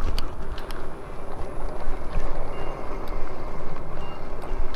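A steady low rumble with scattered clicks, and a short high beep repeating about every second and a half.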